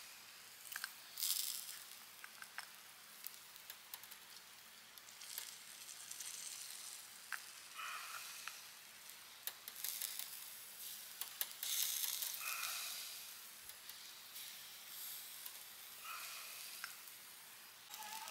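Skewered meat sizzling on a wire grill grate over a wood fire as sauce is brushed on, with sharp crackles and pops from the burning wood. The hiss swells in loud stretches, about a second in and again around ten to twelve seconds in.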